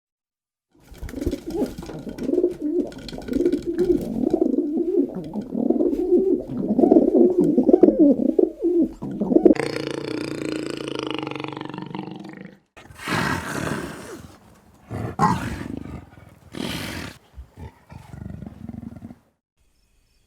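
Animal calls from several short clips: a long wavering low call for about nine seconds, then a steadier held call, then several short separate calls near the end.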